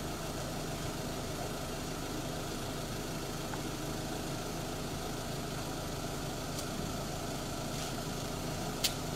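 A vehicle engine idling steadily, with one short click near the end.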